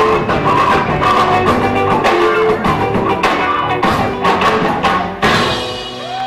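A live band playing an instrumental passage on bass guitar, drum kit and hand percussion in a steady rhythm. The song ends on a final accented hit about five seconds in that rings out and fades.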